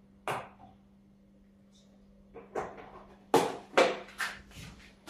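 Kitchen handling noises: one knock, then after a pause a run of clunks and knocks as items are picked up and set down at the sink. A faint steady hum runs underneath.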